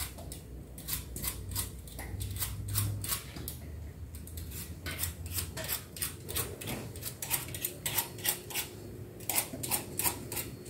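Hand-held vegetable peeler scraping the skin off fresh peaches, in short repeated strokes several times a second, with a brief pause between fruits.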